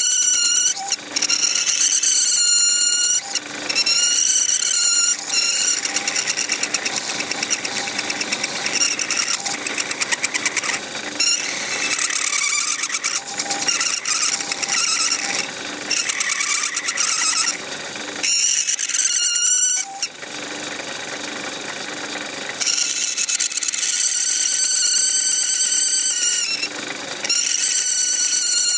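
Lathe cutting tool squealing in high, wavering tones as it turns down a layered-plastic model chimney, on and off with short breaks and a quieter spell about two-thirds through, over the lathe motor's steady hum.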